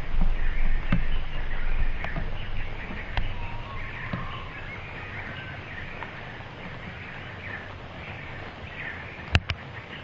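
Magpie pecking and stepping on a metal bird-table tray, giving a few sharp taps, with two loud clicks near the end. Small birds chirp faintly in the background, and a low rumble sits under the first few seconds.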